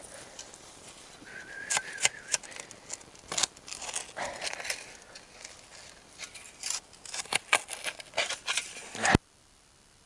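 Hand digging in root-filled soil: irregular scrapes, crunches and snaps of a digging tool working through earth and roots, with a brief squeak early on. The sound cuts off suddenly about nine seconds in.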